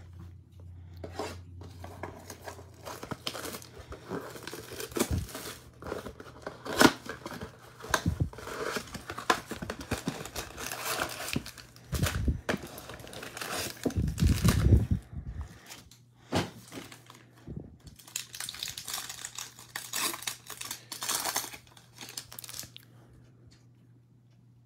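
A cardboard trading-card box torn open by hand, with its clear plastic wrapping crinkling and the packs inside being handled: irregular tearing, rustling and clicks. A few dull knocks come about halfway through, and it goes quieter near the end.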